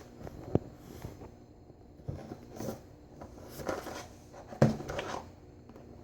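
Soft handling noises of a cardboard box being picked up and turned over: a sharp click about half a second in, then a few scattered light knocks and rustles, the loudest a little before the end.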